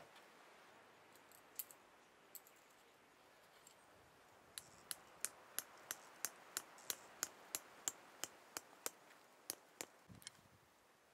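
A run of sharp, high-pitched clicks, evenly spaced at about three a second, starting a little under halfway in and lasting about five seconds, after two single clicks near the start.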